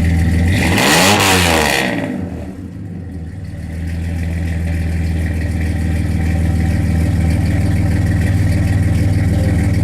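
1998 Dodge Dakota's V6 idling at the exhaust, blipped once about a second in, its pitch rising and falling quickly before it settles back to a steady idle.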